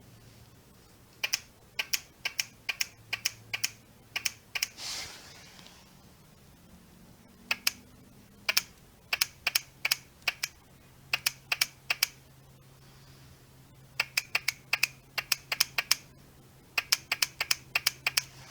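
A series of sharp clicks in irregular bursts of several at a time, over a faint steady low hum.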